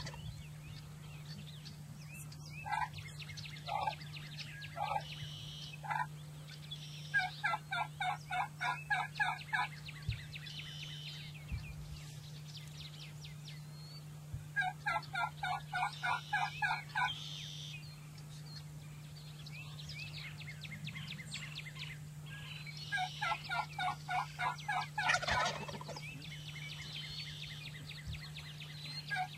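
Rio Grande wild turkey gobblers gobbling: three long, rapid, rattling gobbles about eight seconds apart, with a few short single notes a few seconds in.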